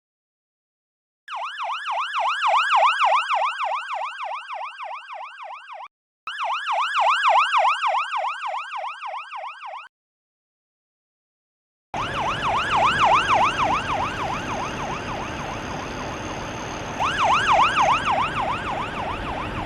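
Emergency vehicle siren in a fast yelp, about four rises and falls a second: two clean stretches with a short break between, then after a pause a siren heard over road traffic rumble.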